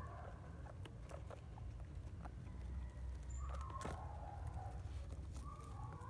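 Guinea pig pup nibbling and moving through hay on a plastic cage mat: scattered small clicks and crackles over a steady low hum. Twice, about four and five and a half seconds in, a brief faint chirping animal call is heard.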